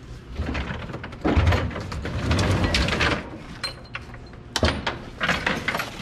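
A fire engine's RIT pack being handled in its compartment: a stretch of scraping and rustling, then several sharp knocks and clicks.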